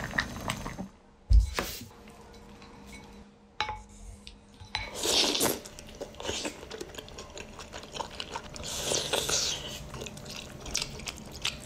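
Kitchen clatter: dishes and utensils clinking and knocking at irregular moments, with a heavy thump about a second in and a little water.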